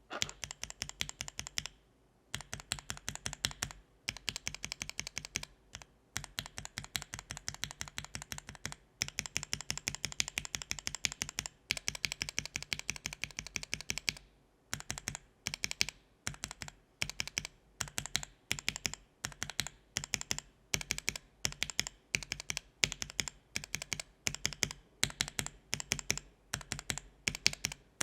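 Gateron linear mechanical keyboard switches being pressed in quick runs of sharp clacks, with brief pauses between runs, as a sound test of individual switches.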